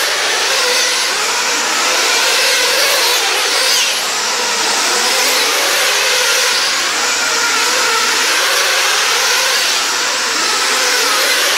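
Small nitro glow engines of RC sprint cars running at high revs on the track, a steady high-pitched buzzing whine whose pitch rises and falls as the cars accelerate and lift through the turns.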